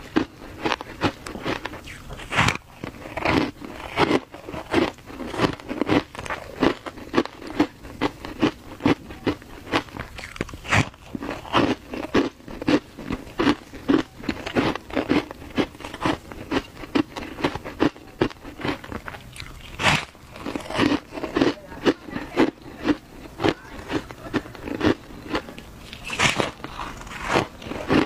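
Crunching bites and chewing of a block of frozen shaved ice dusted with matcha powder: a steady run of sharp crunches, a few a second.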